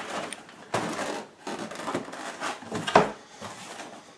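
Cardboard box and packaging being handled: rustling and scraping of the flaps and card inserts, with a sharp knock about three seconds in.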